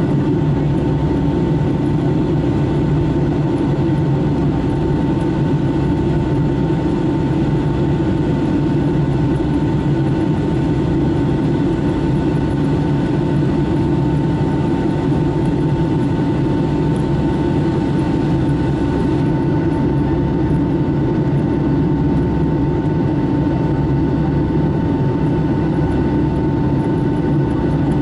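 Steady cabin noise of a Boeing 757-300 in its climb after takeoff, heard from a window seat over the wing: a low, even drone of the jet engines and airflow, with a few steady whining tones above it.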